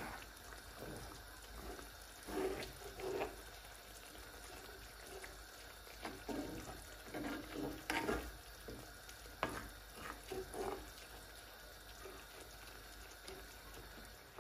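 Wooden spoon stirring rice through coconut-milk liquid in a cast-iron skillet: wet sloshing strokes in irregular bursts, over a faint steady background.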